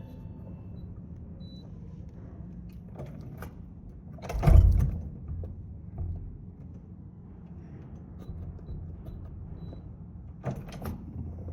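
Handling of a Schlage keypad deadbolt lock at a door: a few light clicks and one louder knock about four and a half seconds in, over a steady low hum.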